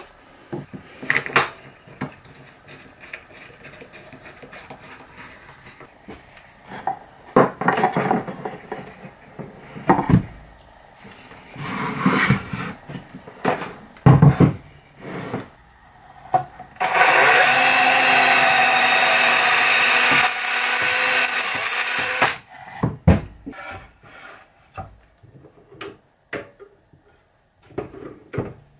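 Wooden parts being handled, knocked and set down on a board, then a power tool running steadily for about five seconds just past the middle, followed by more scattered clicks and knocks.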